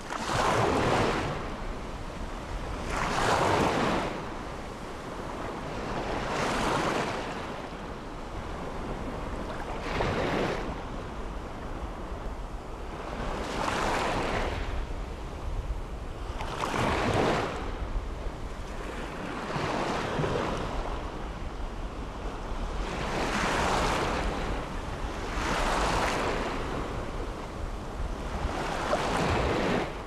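Small sea waves breaking and washing up a sandy beach, one surge swelling and fading every three to four seconds, over a steady low wind rumble.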